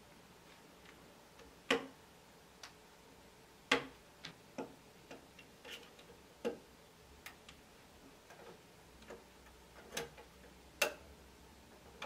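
Small sharp clicks and taps of fingers and plastic on a GIGABYTE B660M motherboard as a part is worked loose and removed. There are a dozen or so irregular clicks, with louder ones about two seconds in, near four seconds and near eleven seconds.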